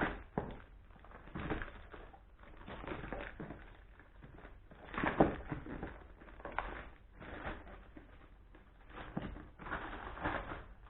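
Shipping box and its packaging being opened and handled by hand: irregular rustling and crinkling with scattered knocks, the loudest about five seconds in.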